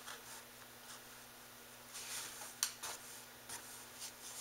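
Faint rustling and rubbing of yarn being drawn through the warp strings of a small hand loom, with a few light clicks and taps of the needle and hands against the loom about halfway through.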